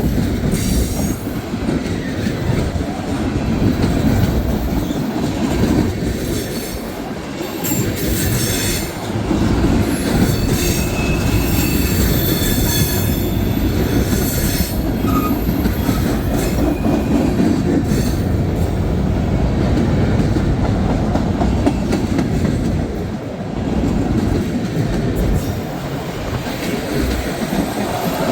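Freight cars of a long CSX train rolling past close by: a steady heavy rumble of wheels with clacking, and high-pitched steel wheel squeal on the curve coming and going, strongest in the middle.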